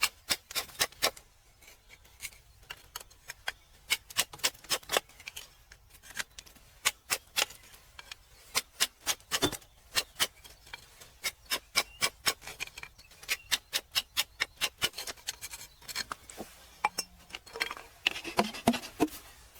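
Sharp, irregular taps of a metal tool striking rock while working crystal geodes out of stone. The taps come about three a second in runs, with short pauses between them.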